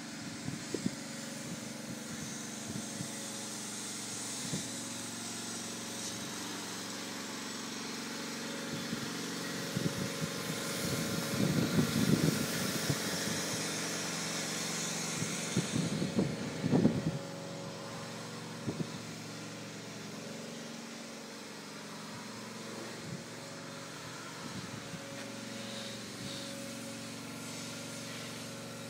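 A steady engine hum at an even pitch, with louder gusty rumbles about ten seconds in and again around sixteen seconds in.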